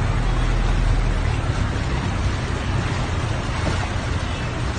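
Steady rushing noise of a heavy rainstorm, with a low rumble underneath.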